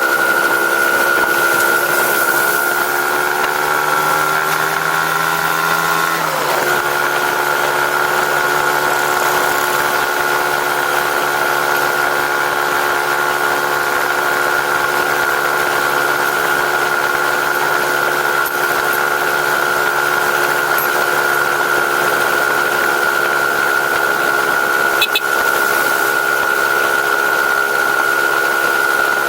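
Engine idling steadily through its stock exhaust. Its pitch sags a little a few seconds in, then settles to an even idle.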